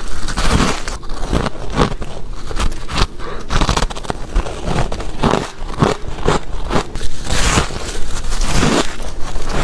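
Close-up chewing of mouthfuls of ice: hard crunches following one another rapidly and without a break, bite after bite.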